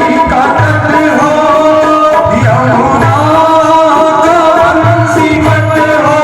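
Devotional bhajan music: tabla drumming under held melody notes, with a wavering singing line over it.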